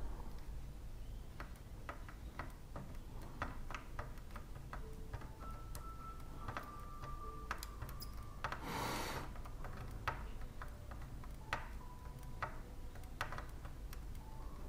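Faint, irregular small clicks and taps of hand tools on a circuit board during soldering, over a steady low hum, with a brief hiss about nine seconds in.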